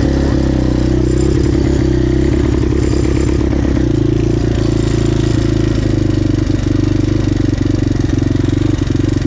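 Suzuki LTZ-400 big-bore quad's single-cylinder four-stroke engine running at low revs. Its beat changes for the first few seconds as the quad moves off, then it settles into a steady idle.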